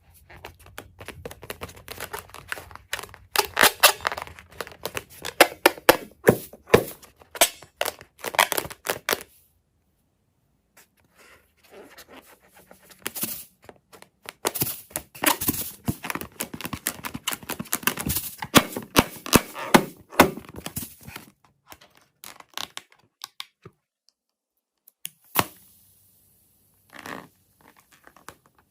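Slime being squeezed and handled: fast crackling clicks in two long spells, with a short break about ten seconds in, then only a few scattered clicks in the last part.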